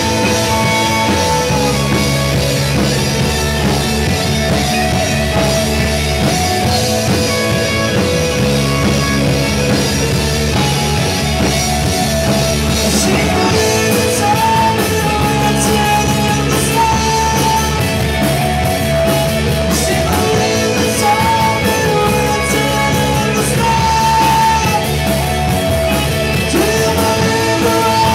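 Rock band playing live: two electric guitars, electric bass and a drum kit, with a male singer's vocals. The cymbals come in harder about halfway through.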